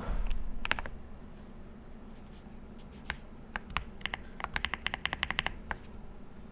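Mechanical keyboard keystrokes on a Monka 3067 kit with Cherry-profile keycaps: a few single key presses, then a quick run of about ten keys in a row past the middle. A low thump sounds right at the start.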